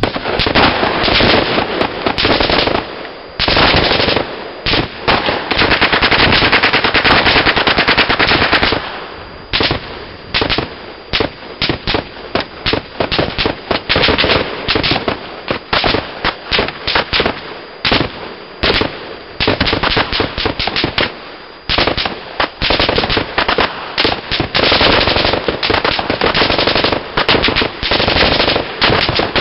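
Machine guns firing in full-auto: long unbroken bursts of rapid shots, with shorter bursts and separate shots in between.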